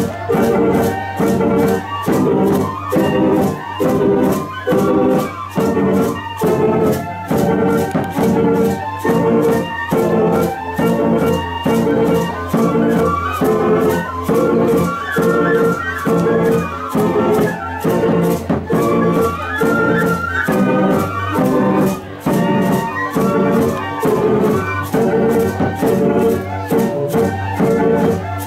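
Bamboo music ensemble (musik bambu) playing a tune together on bamboo pipes, with a steady low bass line under pitched melody notes and a regular beat.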